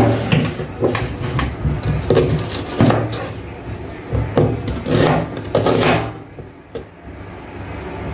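Chef's knife chopping an onion on a wooden cutting board: a string of irregular knocks of the blade striking the wood.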